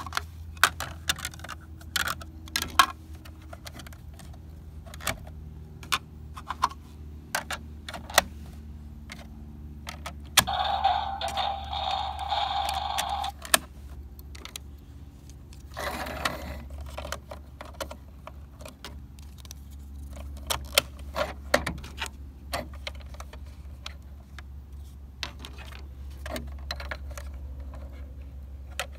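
Plastic clicks and clacks of snap-on body panels being pressed onto and pulled off a toy Lightning McQueen car, in irregular sharp knocks. About ten seconds in a steadier, higher sound lasts about three seconds, and a low hum runs underneath.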